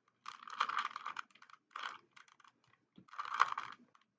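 Plastic 3x3 Rubik's cube being turned by hand: rapid clicking and rasping of the layers, in three quick spells of turns with short pauses between.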